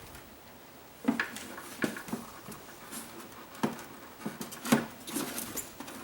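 A series of short plastic clicks and knocks, with a quick cluster near the end, as the old taillight assembly is worked free of its clips and pulled out of the car body.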